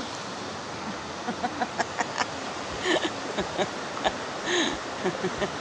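Steady rush of river water, with irregular sharp pops and crackles of a small wood fire burning in a camp stove.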